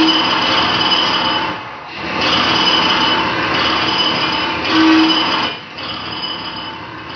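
Live laptop sound mix of dense, harsh machine-like noise with a few steady high tones through it. It drops away briefly about two seconds in and again near six seconds, coming back quieter after the second drop, and a short low hum sounds at the start and about five seconds in.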